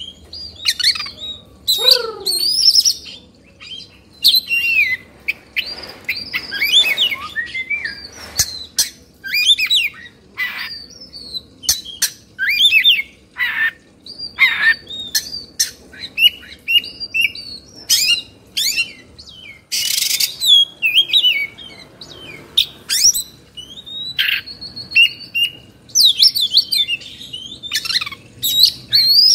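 Oriental magpie-robin (kacer) singing fast and without pause: short varied phrases of sharp rising and falling whistles and chirps mixed with harsh rasping notes. This is the excited, agitated "kongslet" style of song.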